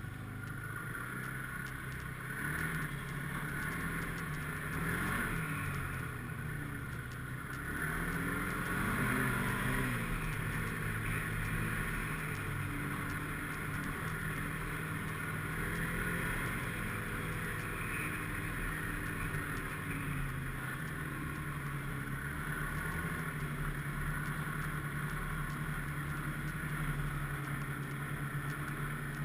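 Snowmobile engine running under way; its pitch rises and falls with the throttle about eight to ten seconds in, then holds fairly steady.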